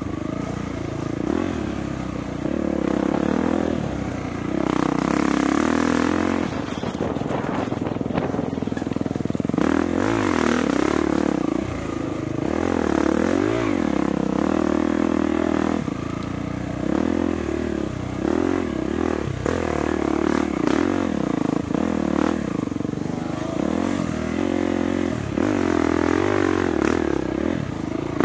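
Dirt bike engine running hard under load, its pitch repeatedly rising and falling as the throttle is worked, with chassis clatter and rattle from rough ground.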